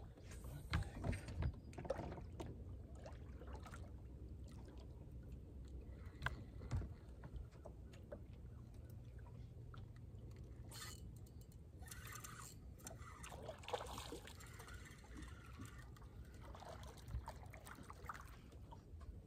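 Water lapping and splashing quietly against a fishing boat's hull, with scattered small clicks and some brief splashy noise in the second half, as a small bass thrashes at the surface beside the boat near the end.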